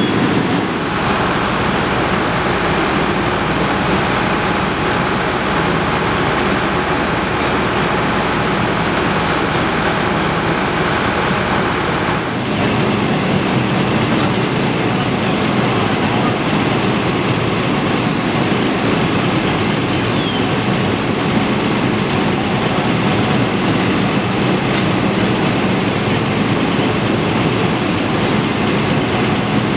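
Fire apparatus engines and pumps running at the scene in a steady drone, with a brief dip about twelve seconds in.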